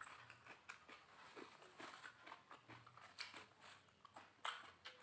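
Faint, close-miked mouth sounds of a person eating: irregular small wet smacks and clicks of chewing.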